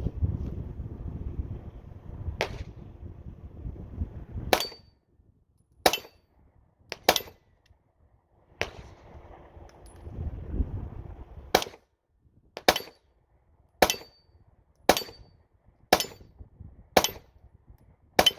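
A 9mm pistol fired single shots, about a dozen in all: a faint one early, then shots spaced unevenly, and from the middle on a steady string at roughly one a second. A low rumble fills some of the gaps between shots.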